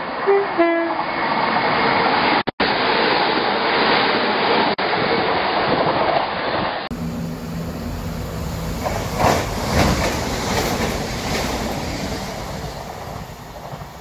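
Passenger train approaching through a station, sounding a short two-note horn about half a second in, over the steady rush of the train running. After a cut about seven seconds in, a train runs past with wheel clacks over the rail joints, fading as it goes away.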